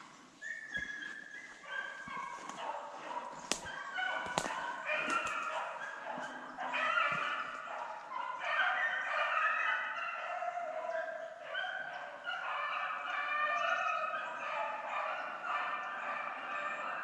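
A pack of deer hounds baying in chorus, many voices overlapping, on a running drive. A few sharp clicks sound around three to five seconds in.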